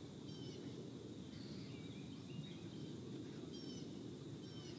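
Faint yard ambience: a steady low rumble of background noise, with short, high bird chirps several times.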